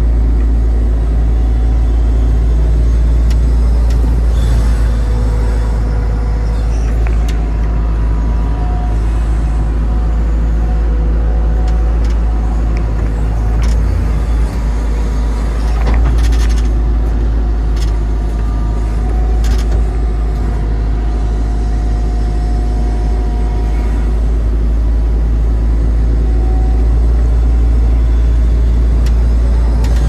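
Tata Hitachi 120 hydraulic excavator's diesel engine running under load, heard from inside the cab: a steady low drone with thin whining tones that come and go as the boom digs and swings. A scattering of short knocks and rattles sounds over it.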